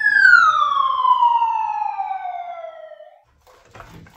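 A whistle-like sound effect: a single pitched tone that holds high, then glides steadily down in pitch for about three seconds and cuts off. Faint knocks follow near the end.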